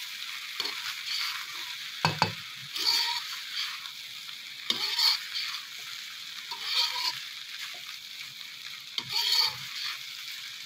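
Metal spatula stirring and scraping fried rice around a hot wok, over a steady light sizzle of frying. The strokes come every second or two, with one sharper knock against the pan about two seconds in.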